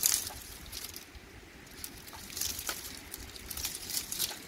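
Small fire of dry twigs and grass crackling, with irregular sharp ticks and pops and a louder snap at the start and another a little past halfway.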